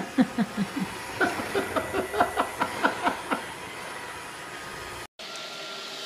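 Roomba robot vacuum running with a steady hum and faint whine, under a quick run of short repeated vocal sounds, about five a second, through the first three and a half seconds. About five seconds in the hum breaks off briefly and comes back at a different pitch.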